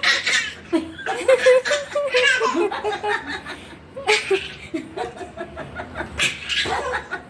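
A baby's pretend coughs, short noisy huffs several times, mixed with high-pitched laughter.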